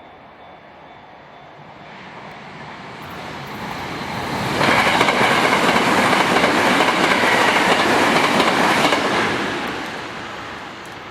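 Electric commuter train passing over a level crossing. The sound of wheels on rails grows as it approaches, is loudest for about four seconds from roughly four and a half seconds in, then fades as it moves away.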